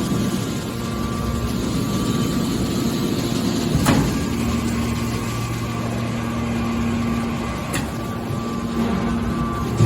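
Hydraulic metal scrap baler running with a steady machine hum. A sharp knock comes about four seconds in and a fainter one near eight seconds.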